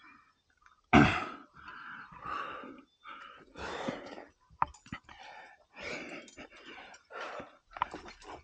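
A rock climber breathing hard while climbing, a noisy breath about every second, the loudest about a second in. A couple of short sharp clicks come in among the breaths.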